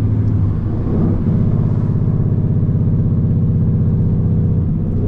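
Car engine running steadily at an even pitch, with a slight change in its note about a second in and again near the end.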